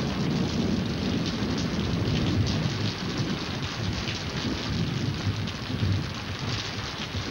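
Steady heavy rain with a low, rolling thunder rumble underneath: a storm sound effect on an old 1940s film soundtrack, easing slightly near the end.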